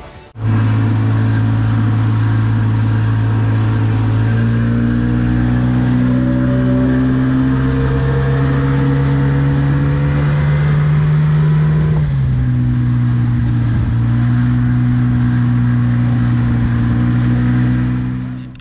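Boat's outboard motor running at speed. Its engine note climbs slowly, then drops abruptly about twelve seconds in and holds steady again.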